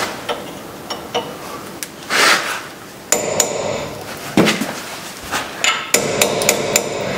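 Hammer striking a cold chisel used as a punch to drive out a brake caliper slide pin seized in its bracket: a string of sharp metal-on-metal taps, some ringing, with a quicker run of strikes near the end.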